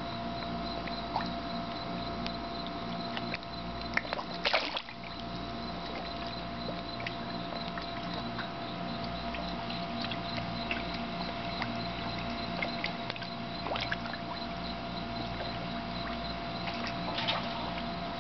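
Water lapping and trickling under a dock, with a few short splashes (the most marked about four and a half seconds in) over a steady electrical hum.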